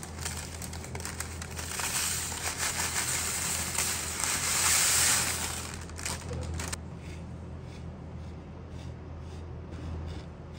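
Toasted, buttered shredded knafeh (kataifi) dough rustling and crackling as it is tipped into a glass dish, loudest just before it stops abruptly about two-thirds of the way through. After that come fainter light scrapes and taps as a metal spoon presses the dough flat.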